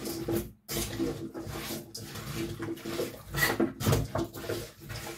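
Hands squishing and turning seasoned chicken pieces and chopped vegetables in a stainless-steel bowl: irregular wet rubbing strokes with small knocks against the bowl.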